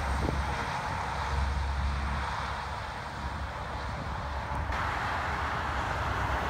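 Steady highway traffic noise from cars and trucks passing on a multilane interstate: tyre hiss and engine rumble.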